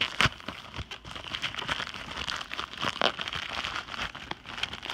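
Packaging of a 5x5 speed cube being handled and opened by hand, crinkling and rustling with sharp crackles, the loudest just after the start and about three seconds in.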